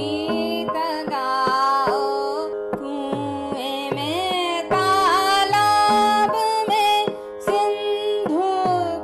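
Indian classical-style music: a steady drone under a gliding, ornamented melodic line, with hand-drum strokes whose low pitch bends downward, several times a second.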